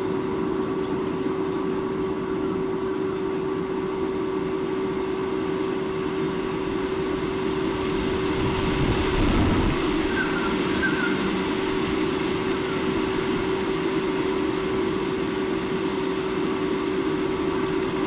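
Steady rushing outdoor noise with a constant low hum running through it, swelling louder for a couple of seconds about eight seconds in, with a few faint short chirps just after.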